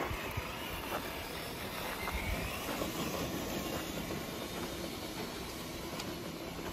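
Electric motor and gearbox of a Traxxas TRX-4 Defender RC crawler whining as it drives over dirt and gravel. The pitch rises briefly about two seconds in.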